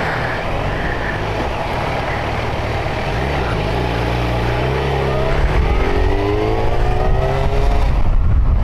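Yamaha FZ1 inline-four motorcycle engine pulling away from a standstill, its revs climbing in rising sweeps from about three seconds in, with wind noise on the microphone building as the bike gathers speed.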